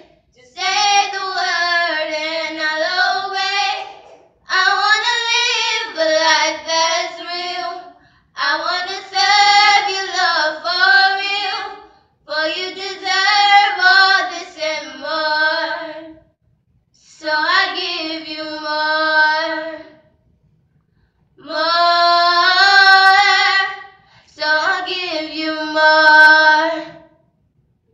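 Two girls singing unaccompanied into one handheld microphone, in phrases a few seconds long with short breaks between them.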